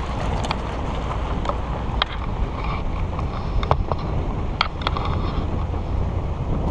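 Wind buffeting a hood-mounted action camera on a vehicle driving a gravel dirt road, over a steady low rumble, with scattered sharp clicks and knocks.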